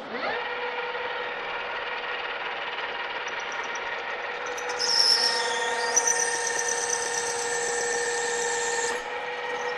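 Engine lathe spinning up to a faster spindle speed, then running with a steady gear whine. About five seconds in, the tool goes into the cut and a high-pitched cutting squeal joins in, running for about four seconds before stopping. The faster speed gets the chips to break, though the tool bit won't live long at that speed.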